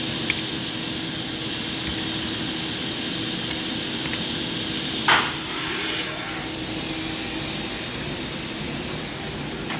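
Doosan DNM 500 II vertical machining center running with a steady mechanical hum and a steady tone. About halfway through comes a sharp clank, followed by roughly a second of hissing air, and the tone drops away a couple of seconds later.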